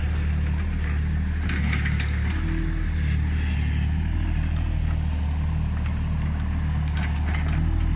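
Hyundai R30Z-9AK mini excavator's diesel engine running steadily, with a few short knocks and scrapes over it.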